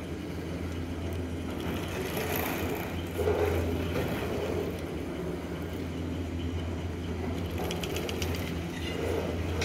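Doppelmayr UNI detachable quad chairlift terminal running with a steady low mechanical hum as the haul rope and chairs move through it. A clunk comes about three seconds in, and a quick run of clicks near the end as chairs pass through the terminal and onto the line.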